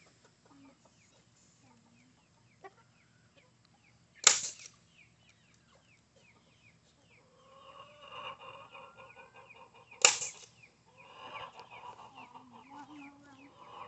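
A staple gun firing twice, about six seconds apart, sharp single snaps as it fixes wire mesh to a wooden frame. Chickens cluck in the background from about halfway on.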